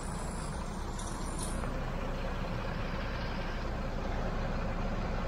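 Tow truck's engine running steadily, a low rumble that grows slightly louder, with road traffic around it.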